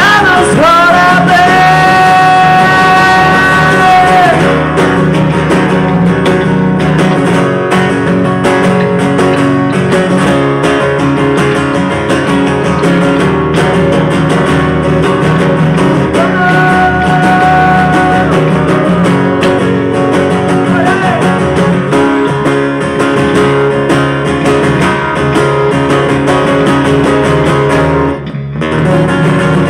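Live acoustic rock duo playing an instrumental passage: steel-string acoustic guitar strummed with an electric bass underneath. A long wordless sung note is held in the first few seconds and another in the middle, and the playing breaks briefly near the end.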